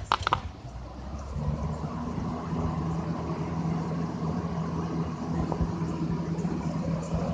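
Lakewood P-23 box fan with second-generation blades, switched up to high speed: the air rush grows louder over the first couple of seconds as the blades speed up, then runs steadily with a low motor hum.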